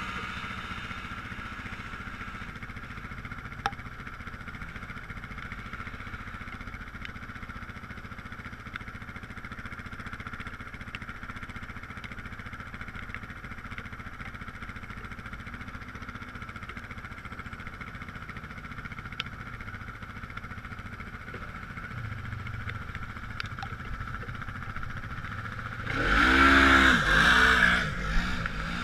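Off-road vehicle engine running at a steady drone while driving on sand, with a few light clicks. Near the end a Polaris RZR side-by-side revs loudly close by for about two seconds, its pitch rising and falling, then fades back under the drone.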